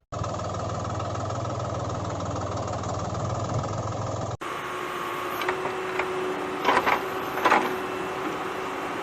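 Small electric motor of a toy vehicle whirring steadily, changing in pitch at a cut about four seconds in, with a few sharp clicks and knocks in the second half.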